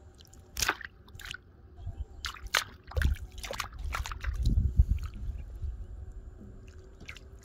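Splashing and sloshing in shallow, grassy floodwater as a hand grabs for a fish, catching a climbing perch by hand: a run of short, sharp splashes in the first four seconds or so, then quieter water.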